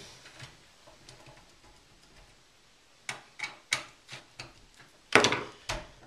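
A screw being driven into the power supply's mounting hole on the back of a steel PC case: a run of light metal clicks and ticks, then a louder knock about five seconds in.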